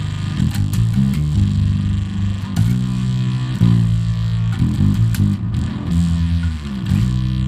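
Electric bass played through an octave-up fuzz pedal, its blend knob mixing the fuzzy upper octave with the clean bass so the low end stays strong; a run of held notes changing every half second to a second and a half, through a Fender Bassman 60 bass amp.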